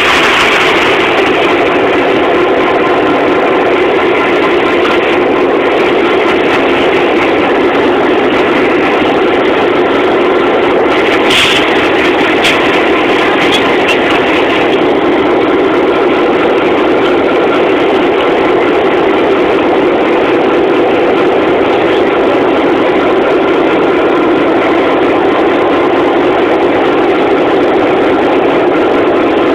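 Diesel locomotive engine running steadily and loud at close range, with a brief hiss about eleven seconds in.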